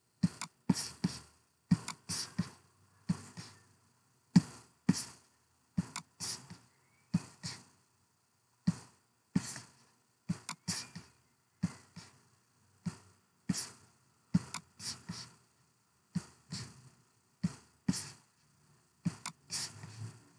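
A run of sharp knocks, one or two a second and irregularly spaced, each a short low thud with a hiss that quickly dies away.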